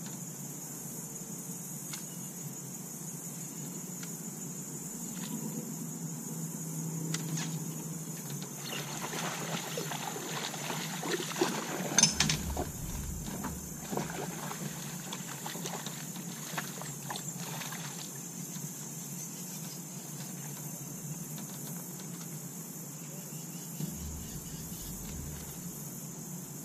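A steady, high-pitched insect chorus, with a stretch of louder rustling and handling noise in the middle while a bass is fought on a rod from the boat, including a sharp knock about twelve seconds in and a low thump near the end.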